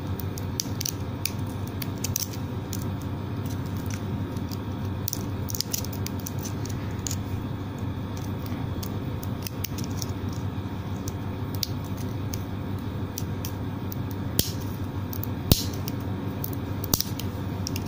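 A serrated knife blade scraping and prying at the small circuit board of a Redmi AirDots earbud during a teardown: faint scratching and small clicks, with a few sharper clicks near the end, over a steady low hum.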